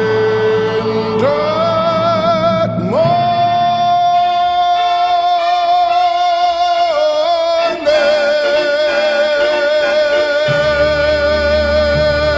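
Closing of a gospel song: long held final notes sung with vibrato, stepping up in pitch twice, then a last sustained note over the instrumental accompaniment's held chord.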